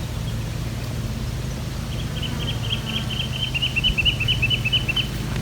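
A steady low engine-like hum, with a bird giving a quick run of short chirps, about six or seven a second and drifting slightly lower, from about two seconds in until near the end.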